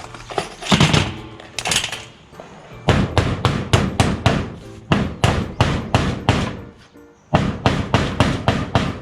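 A hammer driving nails, in two quick runs of blows at about three to four a second with a short break about seven seconds in, after two heavier strikes near the start. Background music plays underneath.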